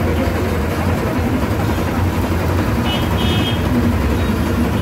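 Steady low rumble of outdoor background noise, with a brief high-pitched chirp about three seconds in.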